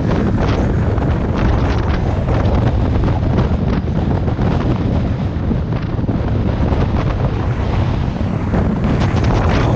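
Heavy wind buffeting on the camera microphone at downhill skateboarding speed, mixed with the rumble of skateboard wheels rolling on asphalt, with frequent short crackles throughout.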